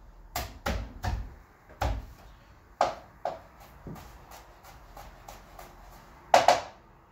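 Kitchen knife chopping garlic on a cutting board: irregular knocks of the blade striking the board, with two louder strikes close together near the end.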